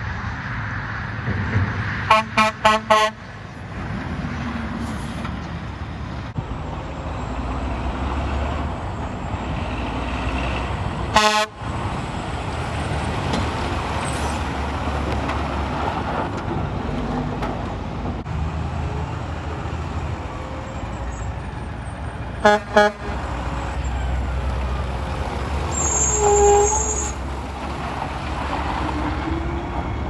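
Heavy truck air horns blasting short toots over the steady low rumble of diesel trucks driving past: four quick toots about two seconds in, a single toot near eleven seconds, and two more a little after twenty-two seconds, with a softer held tone a few seconds later.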